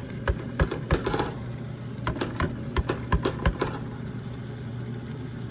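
A quick run of sharp clicks and light knocks, about a dozen in three and a half seconds, as fried fish is put into a pot of green-leaf sauce, over a steady low hum.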